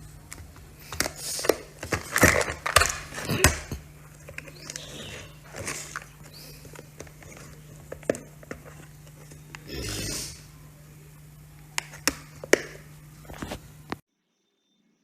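Handling noise from a precision screwdriver kit: irregular sharp clicks and knocks with short rustles, as the plastic case and its bits are handled, over a steady low hum. The sound cuts off abruptly near the end.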